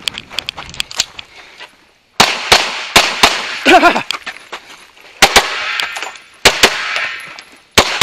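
Pistol shots fired in a competition string: about ten loud, sharp reports starting about two seconds in, several as quick double taps a fraction of a second apart, after a quieter stretch of light clicks.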